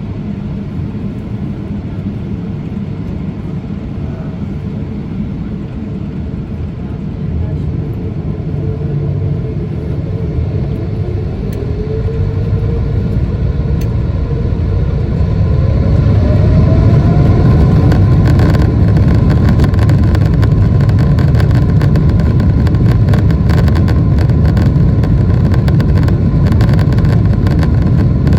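Boeing 777-300ER's GE90-115B turbofans spooling up to takeoff thrust, heard from inside the cabin: a whine climbs in pitch as the roar grows louder over the first half, then the engine noise holds loud and steady with a deep rumble.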